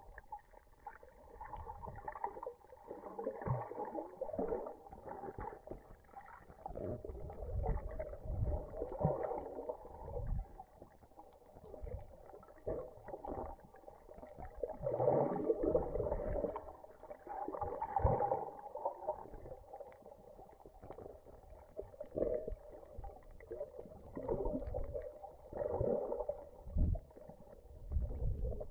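Muffled underwater sound from a camera in a waterproof housing while snorkelling: water sloshing and gurgling against the housing in uneven swells every few seconds, with low thumps and a faint steady hum underneath.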